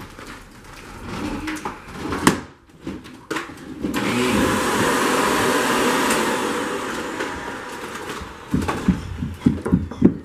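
Upright vacuum cleaner running, coming on about four seconds in and dying away a few seconds later. Sharp knocks and thumps come before it and a cluster of thumps after it.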